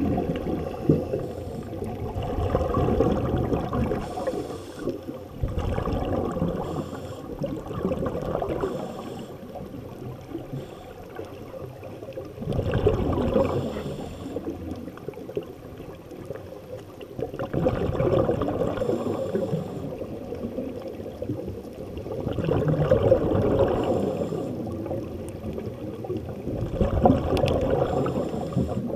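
Scuba regulator exhaust bubbles heard underwater: muffled bubbling and gurgling that swells in surges every few seconds, in step with a diver's exhaled breaths.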